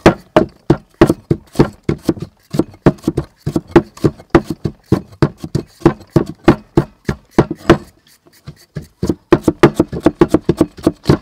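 Cleaver chopping a root into thin slices on a thick round wooden chopping block: sharp knocks about three a second, a pause of about a second near the end, then quicker chopping.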